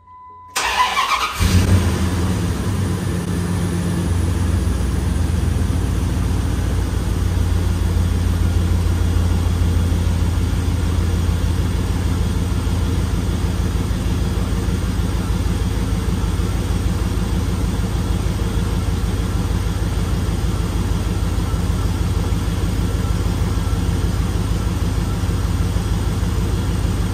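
A Dodge Ram pickup's gasoline engine cranks briefly and catches about a second and a half in, then idles steadily. It is the first start on new spark plugs and plug wires.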